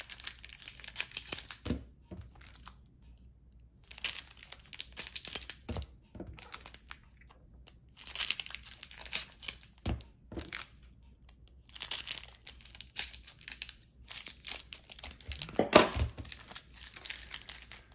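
Cellophane trading-card pack wrappers crinkling and tearing as they are handled and opened, in bursts of a second or two with short pauses. A few soft knocks from handling come between the bursts.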